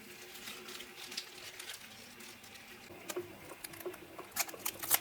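Light kitchen handling sounds during food prep: irregular soft taps and clicks, growing sharper and more frequent about three seconds in.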